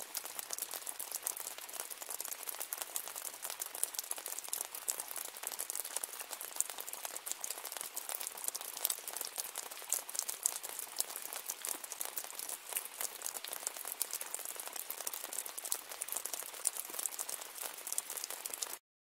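Steady rain: a dense crackle of many small drops, mostly high-pitched with little low rumble. It stops suddenly near the end.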